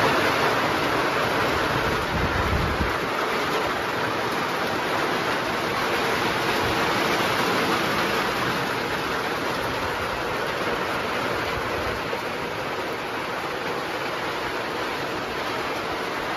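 Heavy rain drumming on the aluminium skin of an old Beech C-45 Expeditor, heard from inside the cockpit as a steady, dense hiss, with a couple of brief low rumbles.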